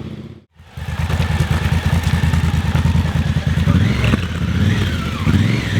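Adventure motorcycle engine running under way on an off-road trail, a low, even, rapid pulsing, cut off briefly about half a second in and then running on.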